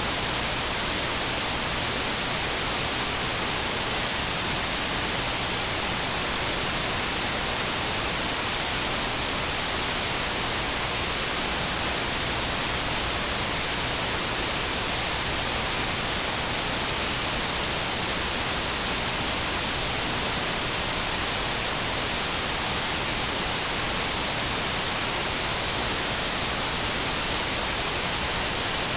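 Steady, unchanging hiss of static: even electronic noise strongest in the high range, with no speech or music in it.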